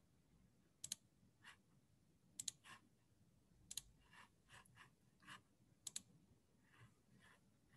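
Faint computer mouse clicks: several quick double-clicks spaced a second or two apart, with softer single clicks between.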